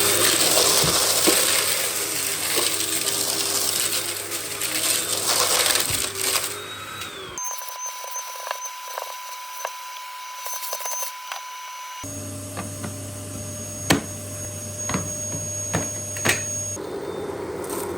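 Russell Hobbs Athena Pet vacuum cleaner running, a steady motor drone with scattered clicks and rattles of debris. The sound changes abruptly twice, thinning for a few seconds partway through to a steady high tone.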